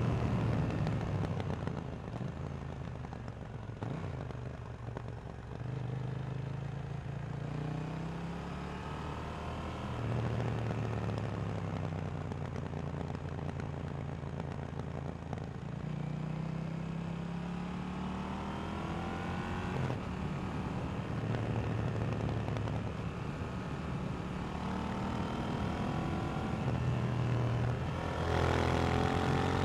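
2018 KTM 790 Duke's 799 cc parallel-twin engine through its stock exhaust, pulling on the road. Its pitch climbs as it accelerates and drops back at each shift several times, and it is louder and harder-revving near the end.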